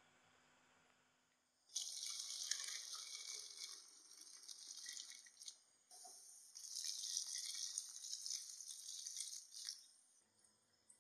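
Water pouring and splashing through a stainless-steel mesh strainer of boiled instant noodles as they drain. It starts suddenly about two seconds in and runs in two spells with a short lull in the middle.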